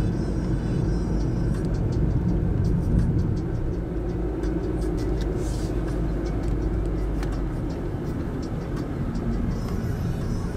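Steady road and engine rumble heard inside a moving car.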